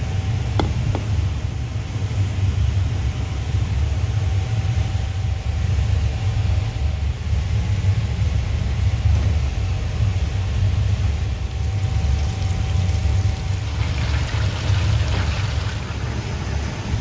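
Steady low machine rumble with a faint steady hum above it, a single sharp click about half a second in, and a stretch of higher rustling noise near the end.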